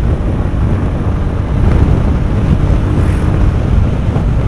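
Motorcycle engine running at a steady riding speed, with wind rushing over the microphone.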